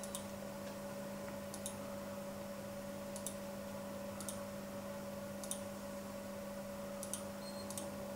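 Computer mouse clicking, sharp single clicks about once a second with a quick pair near the end, as a password is entered on an on-screen keyboard. A steady low electrical hum runs underneath.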